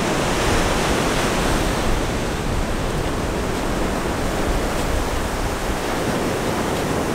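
Ocean surf breaking and washing up on a sandy beach: a steady rush of waves and whitewash, a little stronger in the first couple of seconds.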